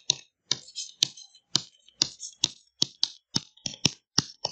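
A quick series of short, sharp clicks and taps, about three a second, made while handwriting is entered on a digital screen.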